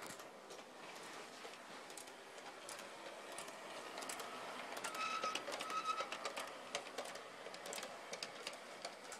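LGB G-scale model steam locomotive and its cars running on brass track: a light motor whir with irregular clicks from the wheels on the rails, and two brief squeaks about five seconds in.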